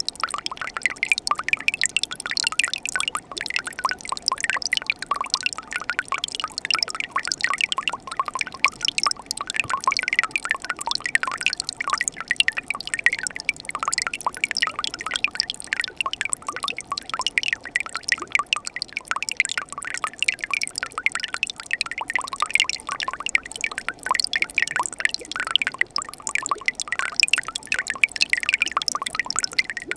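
Winter mountain stream flowing steadily, water trickling and splashing continuously over rocks in a dense, unbroken patter.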